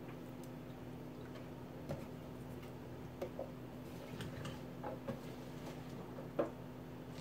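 Faint, scattered rustles and light taps as wet chopped collard greens are pressed into a bowl and gathered by hand from a stainless steel sink, the sharpest tap near the end, over a low steady hum.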